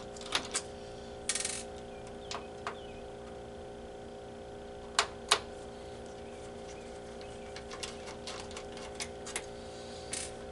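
Scattered small metallic clicks and taps of a screwdriver and tiny screws being worked out of an Xbox 360's case and motherboard, with a brief rasp early on and a run of light ticks near the end, over a steady low hum.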